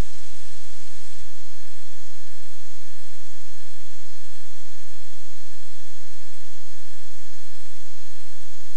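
Loud, steady static hiss with a buzzing electrical hum through it and no speech: a noise fault in the recording.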